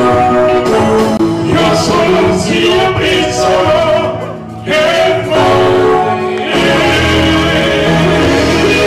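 Congolese rumba dance music with singing over a band. The music thins out briefly about four seconds in, and a heavier bass line comes in near seven seconds.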